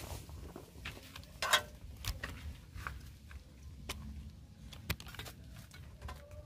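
Irregular clicks and knocks from the camera being handled, the loudest about one and a half seconds in, over a low wind rumble on the microphone.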